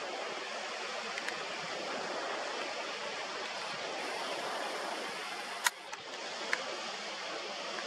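Steady rushing of sea water, with a sharp click about three-quarters of the way through and a fainter one just under a second later.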